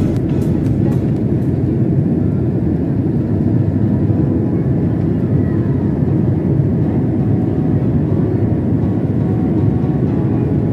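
Steady cabin roar of a Boeing 767 airliner in flight, engine and airflow noise heard from inside the cabin, even and unbroken.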